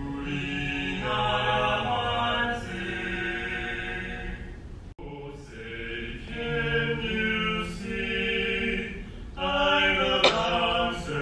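A national anthem being sung in slow, long held notes. The singing breaks off for an instant about five seconds in, and a sharp click sounds near the end.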